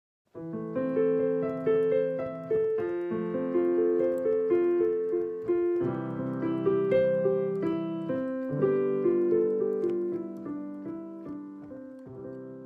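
Piano playing a gentle melody over chords. The last chord is held and dies away near the end.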